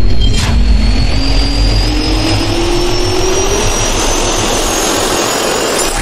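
Jet-turbine spool-up sound effect: a loud rush of air with a whine that rises steadily in pitch, cutting off suddenly at the end.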